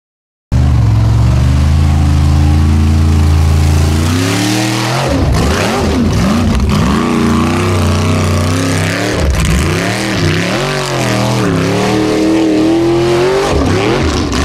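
Formula offroad buggy's engine, starting abruptly: first a steady, loud drone held for a few seconds, then revved hard up and down again and again as the buggy climbs a steep dirt bank under full load.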